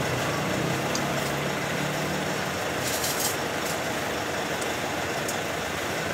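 Steady motor-vehicle engine noise, with a low engine hum that fades out over the first couple of seconds. A couple of faint clicks about three seconds in.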